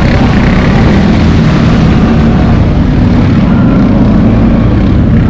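CFmoto X8 ATV's V-twin engine running steadily under load as the quad drives through a shallow river, with water spraying and hissing off the wheels as it comes out onto the bank.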